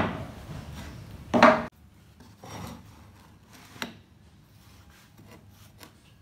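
Square steel tubing handled on a wooden workbench: two loud knocks and scrapes within the first second and a half, then quieter rubbing of the tubes over the wood and small clicks as they are pressed into a magnetic corner clamp.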